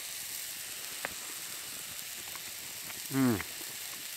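Steak sizzling steadily on a hot cast iron skillet. About three seconds in, the man eating gives a short, loud vocal sound that falls in pitch.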